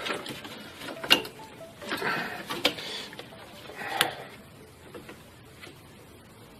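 Long-handled pliers and plastic parts being worked in an engine bay: a few sharp clicks spread over the first four seconds, with rustling and scraping between them.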